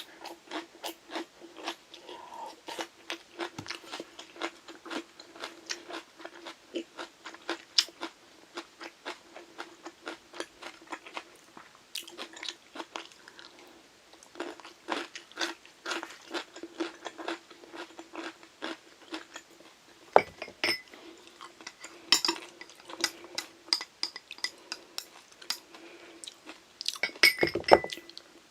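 Close-miked crunchy chewing of Korean side dishes, a steady run of crisp crunches about two or three a second, with a few louder clusters of clicks toward the end that fit chopsticks or a spoon against the dishes. A faint steady hum runs underneath.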